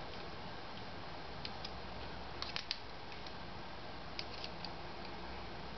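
Small bolts and black printed corner pieces being handled, giving a few light clicks and taps scattered through the middle, over a faint steady hiss.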